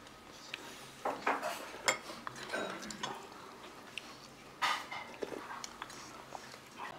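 Stainless steel spoons and chopsticks clinking and scraping in earthenware ttukbaegi pots of soup, with scattered sharp taps and a few short, louder noises of eating.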